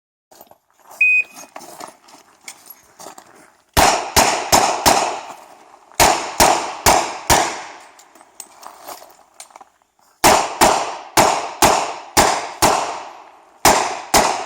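A shot timer beeps once, and about three seconds later a Smith & Wesson 929 revolver fires eight quick shots in two strings of four. After a pause of about three seconds, likely a reload, it fires eight more, in strings of six and two, each shot ringing briefly.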